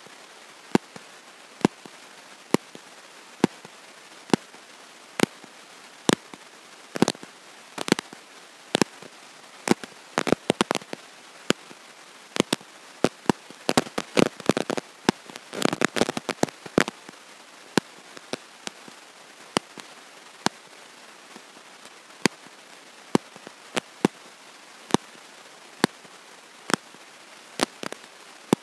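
Sharp electrical clicks and crackles, about one or two a second, thickening into a dense run of crackling around the middle; no speech comes through.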